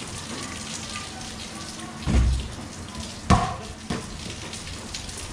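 Steady rain falling on a concrete court. Three heavy thumps break through it about two, three and four seconds in; the second is the sharpest and loudest.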